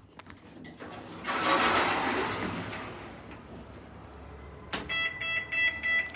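A rush of noise that swells and fades over about two seconds. Then a click and a rapid run of electronic beeps, about three a second, from the passenger lift's signal beeper.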